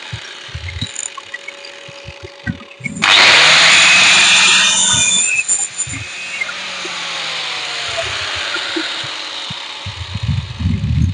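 An electric power tool is switched on about three seconds in and runs loudly for about two seconds. It is then released and winds down with a slowly falling hum over several seconds.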